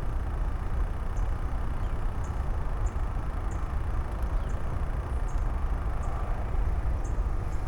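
Wind buffeting the microphone, a steady low rumble with a hiss above it. Faint short high chirps repeat about every half second.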